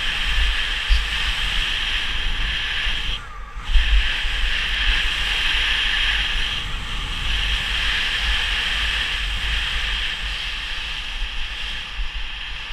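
Skis hissing steadily over snow during a downhill run, with wind buffeting the microphone as a low rumble. The hiss drops out briefly a little over three seconds in.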